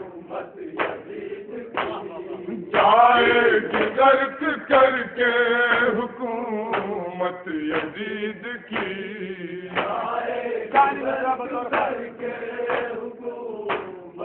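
Men chanting a noha, a Shia lament for the martyrs of Karbala, sung from a written text. Under the chant are evenly spaced strokes about once a second, typical of matam chest-beating.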